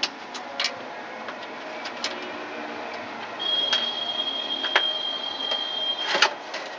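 Scattered clicks and knocks of a desktop computer's case and power supply being handled as the power supply is swapped, with a thin steady high tone for a few seconds in the middle.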